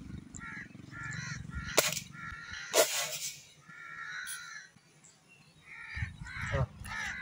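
Crows cawing repeatedly in the trees, with two sharp cracks about a second apart around two seconds in.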